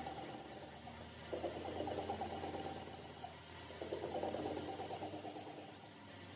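Metal lathe tool cutting the end of a spinning steel driveshaft tube: a high-pitched cutting whine over a rapid rattling chatter, in three passes with short quieter pauses as the cut stops and starts.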